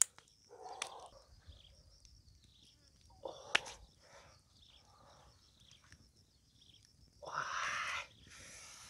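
An animal calling several times in short calls, the loudest about seven seconds in, with a few sharp knocks of bamboo sticks as fish are laid on a stick grill, one knock near the middle sharper than the rest.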